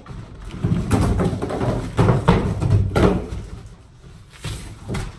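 Large cardboard shipping box being hauled up and lifted off: cardboard scraping and rustling, with several knocks and thumps as the box and its flaps bang about.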